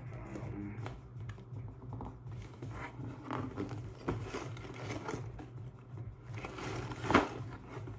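Fingers pressing, tapping and scraping at a cardboard toy box, trying to punch in its perforated opening tab. The handling makes scattered small scrapes and taps over a low steady hum, with one louder crinkle about seven seconds in.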